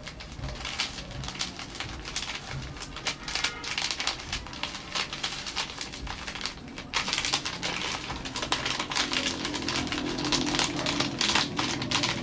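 Plastic Milo sachets crinkling and crackling as they are torn open and squeezed to empty the chocolate-malt powder into a bowl, an irregular run of sharp rustles.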